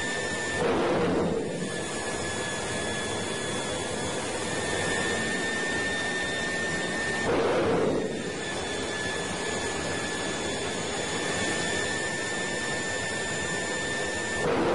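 Large turbocharger running with a steady whine, surging three times about seven seconds apart: each surge is a louder whoosh lasting about a second, after which the whine fades and then comes back. The surges are the compressor stalling and the air flow reversing, with a sudden drop in scavenge air pressure.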